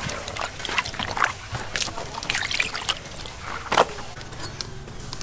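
Water sloshing and splashing in a steel basin as raw pork is washed by hand, with irregular splashes and a sharper splash a little before the end.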